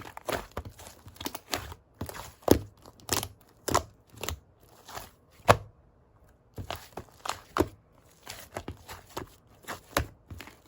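Slime being squeezed and poked by hand, giving a run of irregular sticky pops and clicks, with a short pause a little past halfway.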